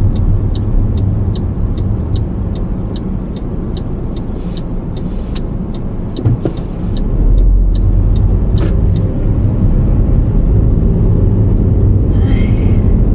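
Car driving, with a steady low rumble of road and engine noise. A regular ticking, two to three ticks a second, runs through the first half and stops about seven seconds in. After that the rumble grows louder.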